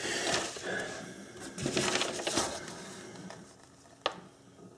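Handling noise from work on a vintage telephone's wiring: scattered rustling and scraping, with one sharp click about four seconds in.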